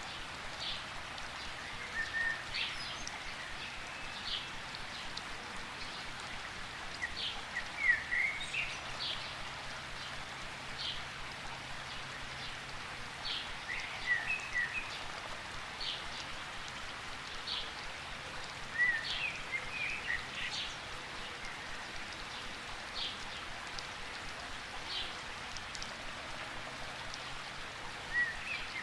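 Steady rain falling in a rain forest, an even hiss, with birds chirping through it: short high chirps repeating every second or two and a few brief twittering calls.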